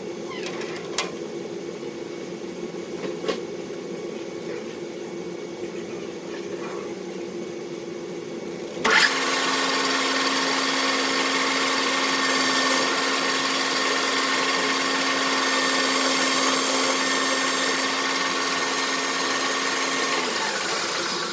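Machine-shop motor humming steadily, with two light clicks. About nine seconds in, a louder machine starts abruptly with a whirring, hissing run and a steady tone, then winds down near the end.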